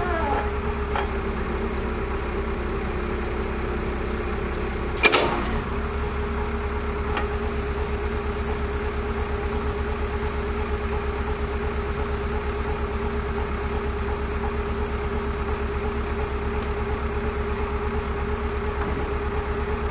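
CASE backhoe's diesel engine idling steadily, with a single sharp knock about five seconds in. A steady high insect buzz runs underneath.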